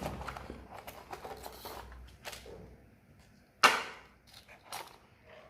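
Box and packaging handled while unpacking a lavalier microphone: scattered light clicks and rustles, with one sharp knock about three and a half seconds in.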